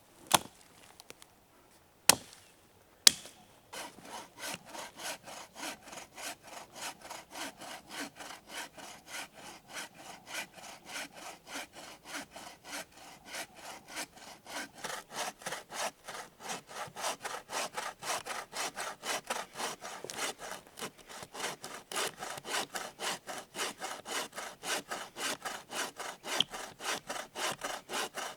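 A few sharp knocks, then a hand saw cutting through wood in steady back-and-forth strokes, about three a second.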